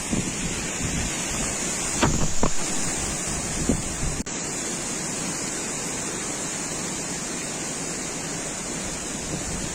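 Strong wind blowing steadily across the microphone, gusting and rumbling a few times early on, the wind of a dust storm.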